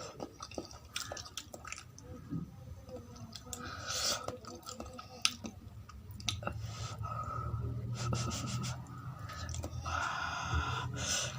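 A person chewing poori with potato curry close to the microphone, with many short mouth clicks and smacks.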